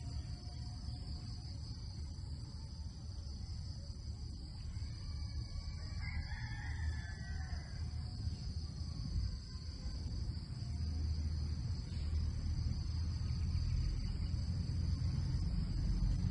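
Insects droning steadily at a high pitch over a constant low rumble, with a few faint chirps about six seconds in.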